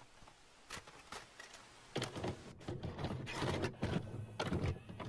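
Video cassette recorder mechanism clicking and clunking over tape hiss as a cassette starts to play. The clunks grow busier and louder from about two seconds in.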